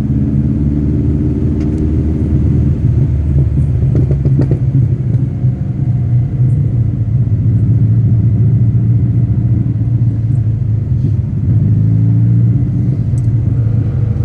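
TVR Cerbera 4.5's V8 engine running at low revs, a steady deep rumble with only slight rises and falls in pitch.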